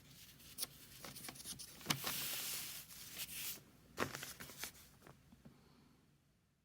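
Chinese calligraphy brush working on paper: a few light taps, the sharpest about two and four seconds in, and a soft scratchy swish of the brush or paper lasting about a second and a half from about two seconds in.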